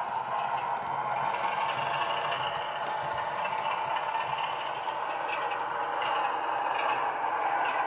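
Heljan OO gauge Class 33 model locomotive's Legomanbiffo DCC sound decoder playing a Sulzer diesel engine, running steadily through the model's small speaker. A few faint clicks in the second half.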